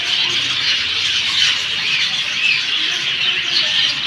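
Many small birds chirping at once in a dense, unbroken chorus, the calls overlapping into a steady high chatter.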